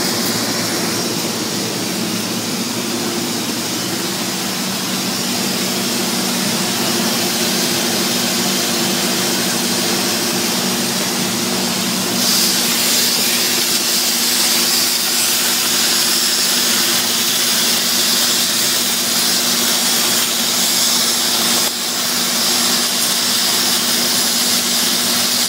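Welding arc hissing steadily during hardfacing overlay of a raw mill grinding table, over a constant low hum. The hiss grows louder about halfway through and dips briefly near the end.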